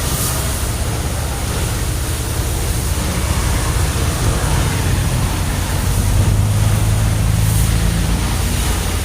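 Chevrolet Camaro engine idling just after a remote start from the key fob: a steady low hum, a little stronger for a couple of seconds past the middle, under a constant hiss.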